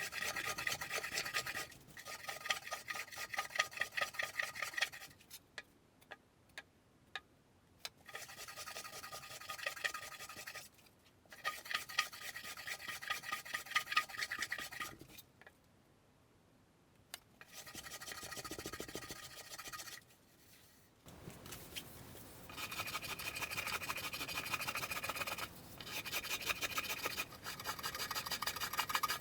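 Wood being rasped by hand: runs of rapid, gritty scraping strokes lasting a few seconds each, broken by short pauses.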